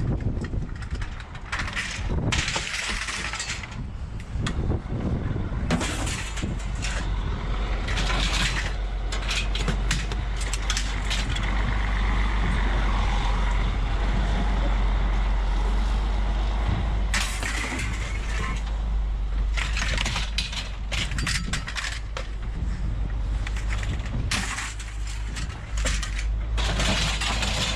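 Scrap metal being handled and dropped, with many irregular clanks and knocks, over a vehicle engine running steadily.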